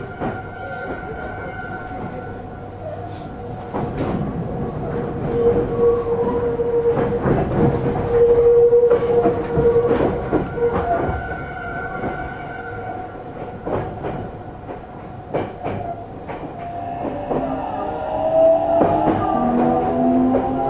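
Meitetsu electric train set 317F running, heard from inside the car: a steady electric motor whine over wheel rumble and scattered clicks from the rails. Near the end the whine rises in pitch as the train picks up speed.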